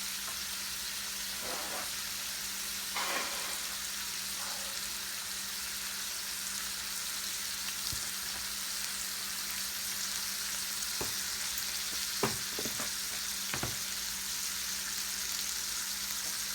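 Strips of bacon sizzling in a frying pan, a steady hiss, with a few light knocks from utensils or the pan about 3 seconds in and again near the end.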